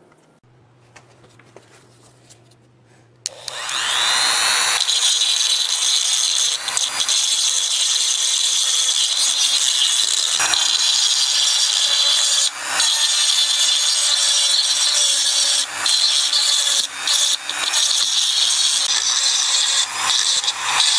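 A handheld power tool starts about three seconds in, spinning up with a rising whine, then runs steadily, grinding or sanding against the work, with brief dips in level.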